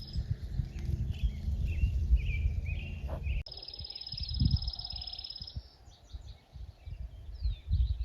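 Outdoor birdsong: short chirps and sliding calls, with a high, steady trill heard twice. Wind rumbles on the microphone through the first half.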